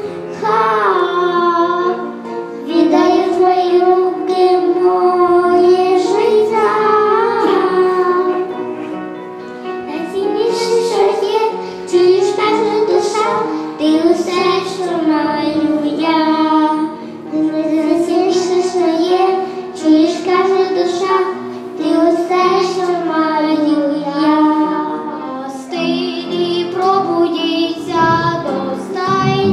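A child singing a song with musical accompaniment.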